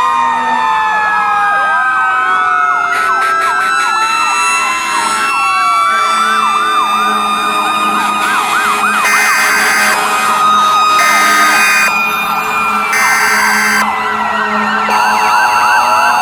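Many emergency vehicle sirens sounding at once: several slow wails rise and fall over one another, with a fast yelp warbling through the middle. Three held horn blasts, each about a second long, come about two seconds apart from about nine seconds in.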